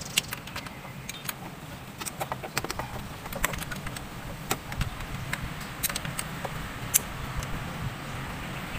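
Irregular clicks and clinks of a ratchet socket wrench and small metal parts as bolts on top of the engine are worked in, over a steady low hum.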